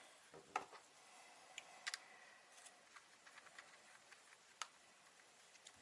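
Faint scattered clicks and taps from handling a small plastic tyre inflator and its screw-on hose fitting, with a sharp click about half a second in, a quick double click about two seconds in and another about four and a half seconds in.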